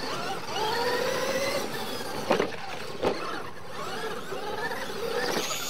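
Several RC monster trucks racing on dirt: their electric motors and drivetrains whine, the pitch sweeping up and down as they accelerate and brake through the turns. Two sharp knocks come near the middle.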